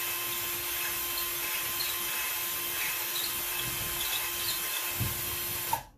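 Cordless drill running at a steady pitch with its bit grinding into a drywall ceiling, wiggled around to widen a quarter-inch hole. It stops suddenly near the end.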